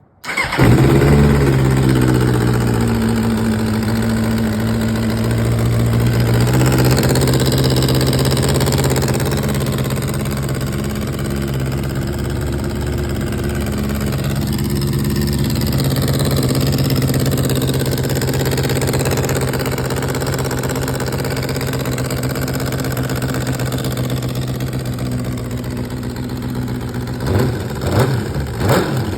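2004 Suzuki GSX-R600's inline-four engine starting and running with a major exhaust leak. It settles from a high idle down to a steady idle over the first few seconds, then gets a few quick throttle blips near the end.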